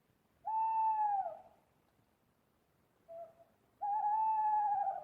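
Owl hooting: a long hoot that drops in pitch at its end, a short faint note about three seconds in, then another long, steady hoot near the end.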